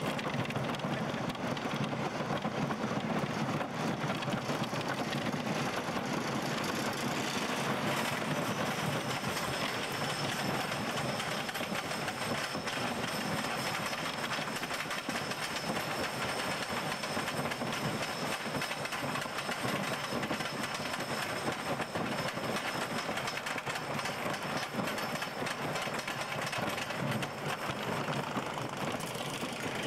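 Wooden roller coaster train rolling onto and climbing the chain lift hill, with a steady rapid clatter of the lift chain and anti-rollback dogs. About eight seconds in, a thin high whine joins the clatter and lasts until the train nears the crest.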